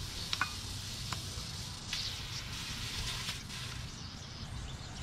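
Compressed air hissing through an air chuck held on an old car tyre's valve stem, in uneven spurts with a few sharp clicks near the start. The valve stem is leaking, so air escapes there as it is filled.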